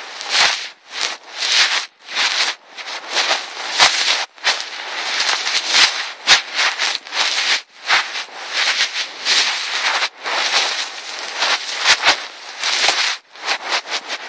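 Loud rustling and scraping close to the microphone in repeated bursts of one to two seconds, with sharp crackling clicks and brief gaps between them.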